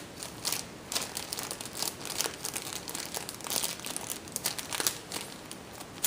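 Plastic Ziploc bag crinkling and rustling as it is handled and cut with scissors, an irregular run of crackles throughout.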